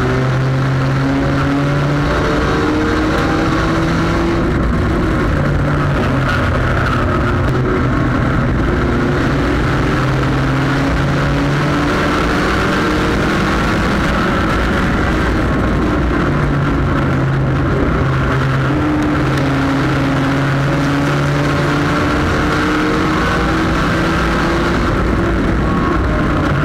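Sport compact race car's engine running at racing speed, heard from inside the car over loud wind and road noise, its pitch climbing several times as it accelerates.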